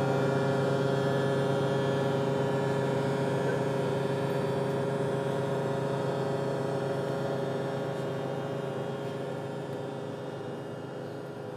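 Live electronic drone music: a dense stack of steady held tones with a deep low band, slowly fading out.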